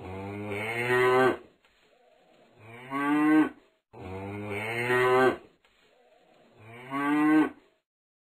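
Cattle mooing: a long low moo followed by a shorter one, the pair heard twice, each call swelling louder toward its end.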